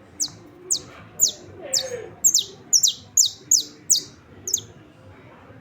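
Saffron finch singing: a series of sharp, high notes, each sweeping steeply downward, repeated about two to three times a second before stopping near the end.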